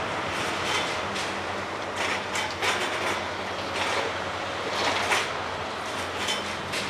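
Balfour Beatty track-laying machine at work: a steady engine hum under sharp clanks and clatters that come at uneven intervals.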